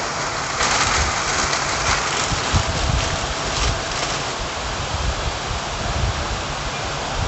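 Heavy rain falling steadily, a dense even hiss, with irregular low rumbles underneath.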